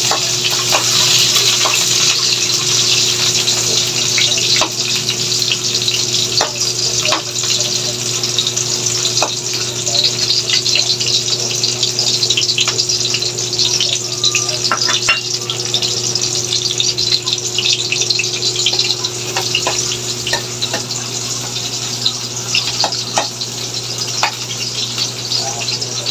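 Chopped onion and garlic sizzling in hot oil in an aluminium wok, the sizzle strongest at first and slowly easing, with scattered scrapes and taps of a metal spoon stirring them.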